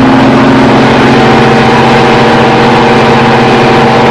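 Bedford six-cylinder 5-litre petrol engine of a Green Goddess fire appliance running steadily under load from inside the cab, pulling slowly up a steep hill in second gear. The note shifts slightly about a second in.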